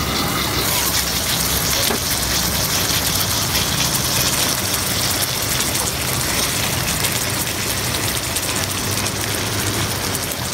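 Beef steak and sauce sizzling on a hot sizzling plate: a steady, loud, crackling hiss of spattering fat and bubbling sauce.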